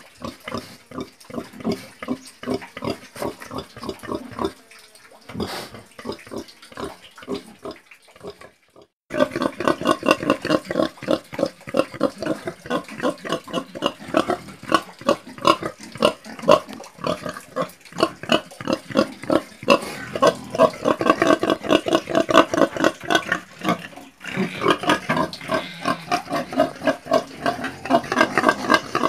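Domestic pig grunting in quick short grunts, several a second. About nine seconds in, the grunting breaks off for a moment and comes back louder and fuller.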